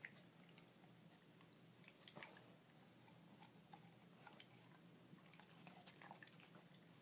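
Faint dog chewing and mouthing sounds, scattered small wet clicks, as the dog works at a toothbrush and toothpaste while its teeth are brushed.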